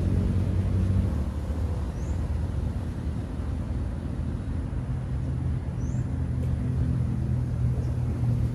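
Steady low engine drone, with a few faint, short high chirps over it.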